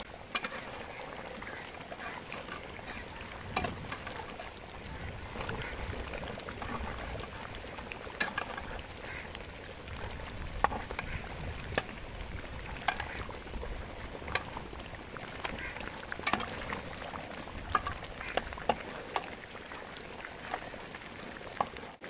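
Thick red chili fish-head curry boiling in a pot, the gravy bubbling with scattered irregular pops and plops over a steady high hiss, as it reduces and thickens.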